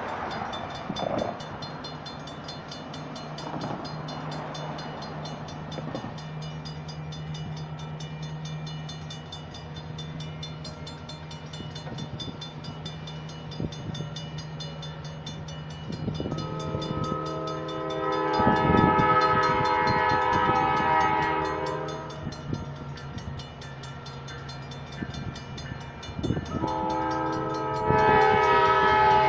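Safetran mechanical railroad crossing bell ringing rapidly and steadily as an EMD GP39-2 diesel locomotive approaches under a low steady engine drone. The locomotive's horn sounds one long blast a little past halfway through, and a second long blast begins near the end.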